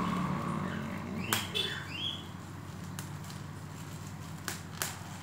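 A few sharp clicks and taps from handling a paper invoice slip and the phone's cardboard box, with a short high chirping sound about a second and a half in, over a low steady hum.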